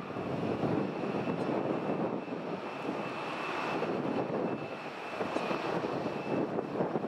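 Boeing 787-8's Rolls-Royce Trent 1000 engines at taxi power: a steady rushing noise with a thin, high whine held over it, as the airliner taxis.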